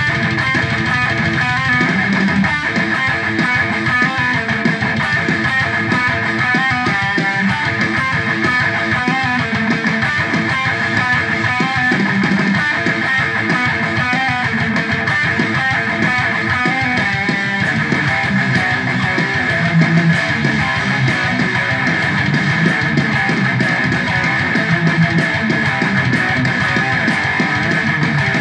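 Electric guitar played through an amplifier and Crate speaker cabinet, a long, fast, steady run of picked notes.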